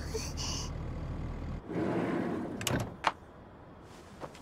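Car engine idling as a low hum, which cuts off suddenly about a second and a half in; then a short rustle and a few light clicks.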